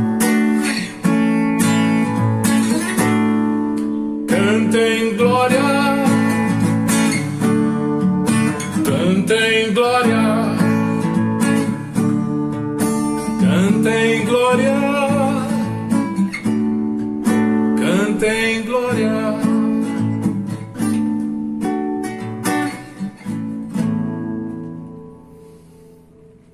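Music: an acoustic guitar strumming steady chords with a wavering melody line above, with no words sung, fading out over the last few seconds as the song ends.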